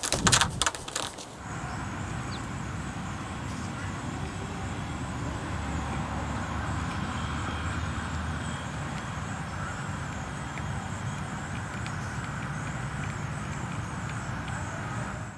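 A chicken beating its wings in a short flurry of flaps while held by hand, then a steady outdoor background noise, like a distant traffic hum, for the rest.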